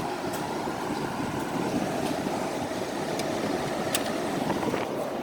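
Window air conditioner running: a steady fan and compressor noise with a faint hum, and a few light ticks.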